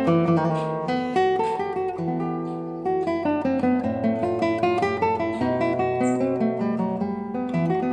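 Background music: acoustic guitar picking a melody over sustained bass notes.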